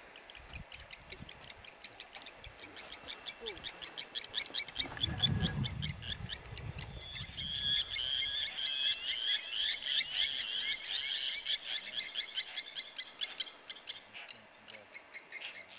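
Wild animal calls: a long run of rapid, repeated calls that builds up and stays loud through the middle, with a deep rumble about five seconds in.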